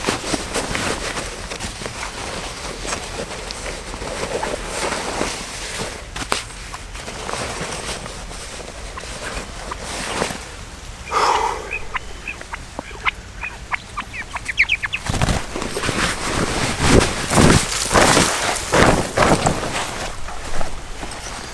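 A bird calling: a single call about eleven seconds in, then a quick run of short high notes. Loud thumps and rustling follow through the last six seconds.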